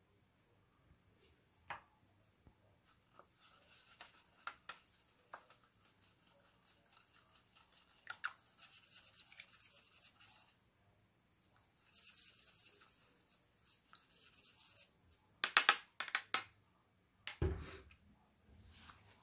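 Paintbrush swished and scrubbed around inside a cup of rinse water, the bristles and handle rubbing and ticking against the cup. Near the end come several sharp clicks in quick succession and then one dull thump.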